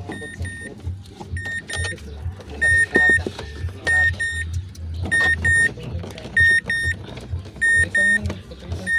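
Mazda 6 alarm beeping in evenly spaced double beeps, about one pair every 1.3 seconds, over a low pulsing hum: the car's electrics have power again.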